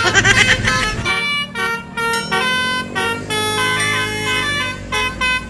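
Telolet bus horn, the multi-tone musical air horn, playing a quick tune of short toots at changing pitches, opening with a loud wavering note.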